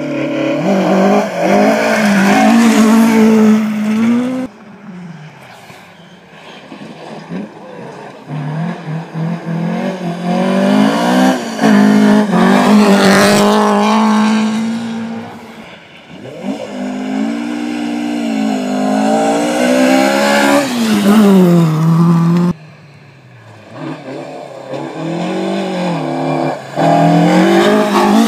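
Historic rally cars driven hard along a gravel forest stage, one after another: engines revving high, their note rising and dropping through gear changes as each car comes past. Each pass starts or stops suddenly where one run gives way to the next.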